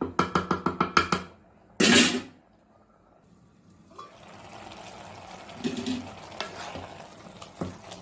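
A rapid run of about ten even knocks in the first second, then a brief loud clatter near two seconds in, as a steel lid goes onto the pan. After that comes the faint steady hiss of rice simmering in milk.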